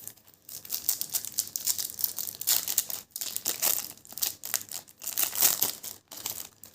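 Foil wrapper of a trading-card booster pack crinkling and tearing as it is ripped open and handled, in a run of crackly rustles with short pauses.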